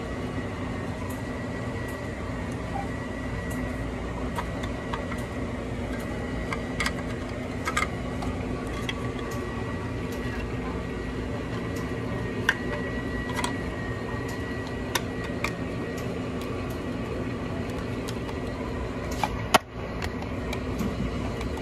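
Steady mechanical hum, with scattered light clicks and taps of small metal parts being handled as an espresso grinder is fitted back together.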